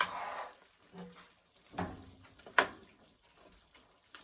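Pot and utensil handling: a short scraping rush, then a few scattered knocks and one sharp clink about two and a half seconds in.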